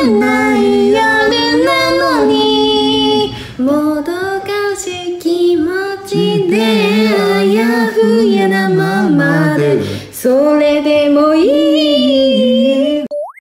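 A young woman singing a Japanese pop song in long held, melodic lines. The singing cuts off abruptly near the end.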